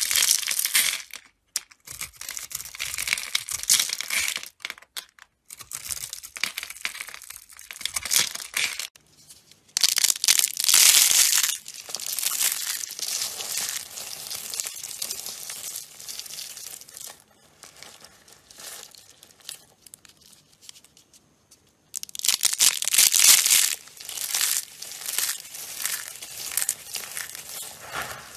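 A knife cutting and scraping through dry soap, giving crisp, crackling strokes in runs with brief pauses between them.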